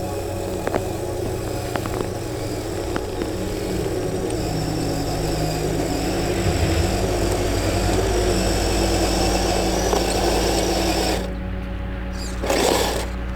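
Kyosho Blizzard SR radio-controlled snowcat running, its electric motor and gear drive whirring steadily. A few light clicks come in the first seconds. The whirring drops away about eleven seconds in, and a short louder burst follows near the end.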